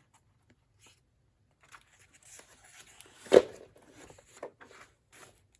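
Paper pages of a large book being turned: soft rustling starting after about a second and a half, with one sharp, loud page snap a little over three seconds in.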